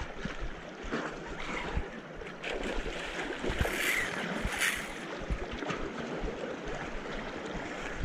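Wind buffeting the microphone over sea water washing against the shore, with a brighter hissing rush a little past halfway through.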